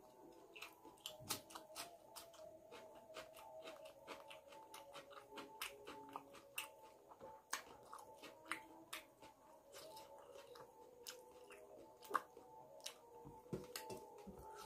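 Close-miked chewing of rice and chicken curry eaten by hand: a quiet, steady run of small wet mouth clicks and lip smacks.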